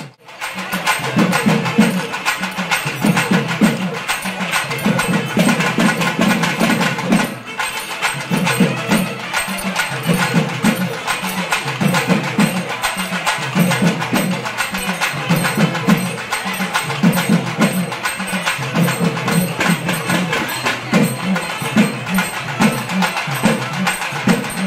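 Music with a pulsing beat and many sharp wooden clicks from kolattam sticks, struck together by dancers in a circle. The sound drops out briefly about seven seconds in.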